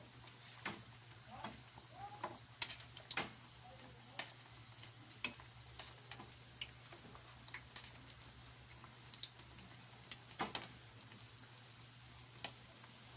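Squash fritters frying gently in shallow oil in a wok over low heat, a faint sizzle broken by irregular sharp clicks and taps as metal tongs turn them against the pan, the loudest clicks a few seconds in and again about ten seconds in.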